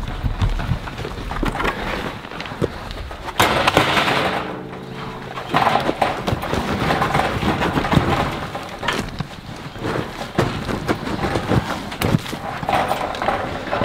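Pigs being herded through wood-chip bedding: trotting, rustling and knocks against a wooden pen gate, with a low drawn-out grunt about four seconds in.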